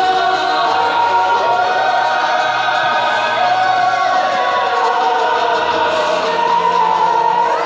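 Choral music: many voices holding long notes, with slow slides in pitch.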